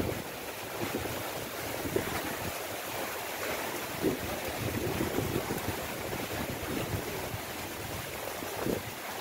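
Strong gusty wind buffeting the microphone over heavy rain and choppy harbour water slapping against the quay, with a few brief louder gusts.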